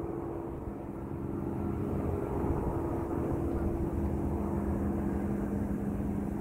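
Steady engine hum over a low rumble, its main tone shifting lower about halfway through.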